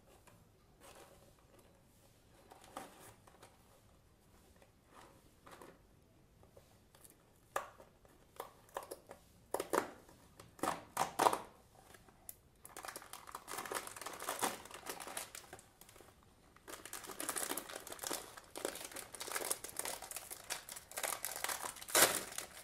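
Small cardboard snack box handled and its top flap pulled open, with a few sharp rips, then a metallized plastic inner pouch crinkling as it is pulled out and torn open. Soft handling taps at first; the crinkling starts about halfway in and pauses briefly before going on.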